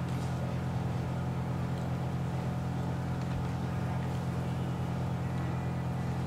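A nearby engine running steadily at a constant low pitch, a continuous drone with no change in speed.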